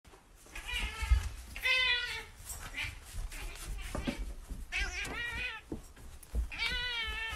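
Domestic cat meowing repeatedly: a series of drawn-out, wavering meows, the last two the longest, as it demands food.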